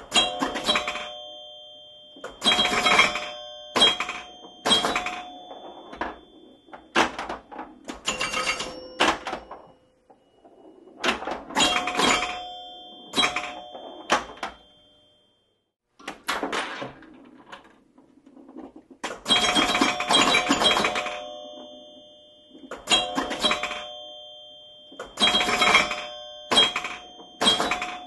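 Pinball machine in play: clusters of sharp clacking hits, each followed by ringing bell chimes that die away, with a short lull about halfway through.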